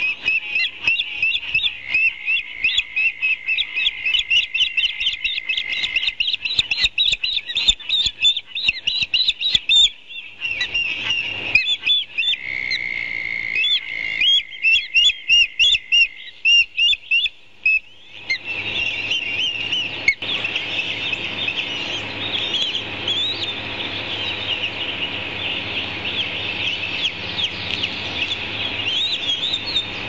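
Ospreys calling at the nest: fast series of short, high chirps, repeated in bursts. A steady high tone sounds under the chirps twice, and from a little past the middle the chirping turns denser over a steady hiss.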